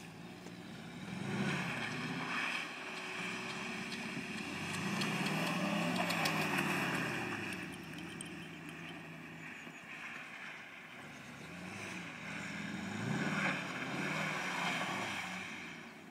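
Land Rover Lightweight's V8 engine revving up and easing off as the vehicle is driven about on sheet ice, its note rising and falling three times: about a second in, in the middle, and near the end.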